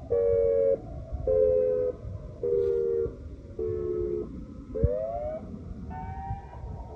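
Federal Signal SiraTone electronic siren on its Pulsed Wail setting, through large speakers. The tone comes in short pulses about once a second, each a little lower as the wail falls, then sweeps up again about five seconds in, over a low rumble of background noise.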